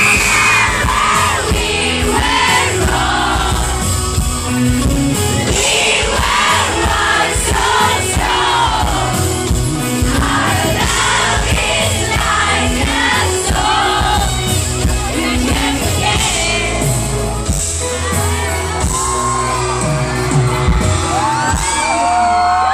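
Live amplified pop song heard through a concert PA: a female singer over a band with a heavy bass, and a crowd shouting along underneath.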